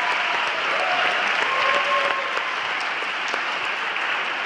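Audience applauding, a steady spell of clapping with a few faint voices in the crowd.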